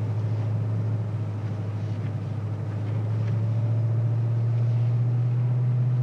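Car engine running steadily, heard from inside the cabin as a low drone over road noise, rising slightly in pitch about three seconds in.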